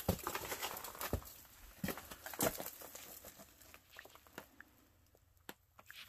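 Scattered scrapes, knocks and clothing rustle of a person clambering down among boulders into a cave, with loose stones shifting underfoot. The sounds thin out to near silence in the second half.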